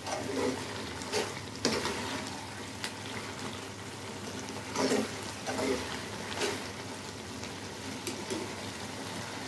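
A ladle stirring a thick curry in a metal kadai, scraping and knocking against the pan several times over a steady sizzle from the simmering curry.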